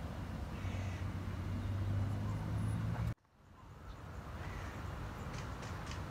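Outdoor ambience with wind rumbling on the microphone and a low steady hum, which cuts off abruptly about three seconds in at an edit and fades back up, followed by faint rapid clicking.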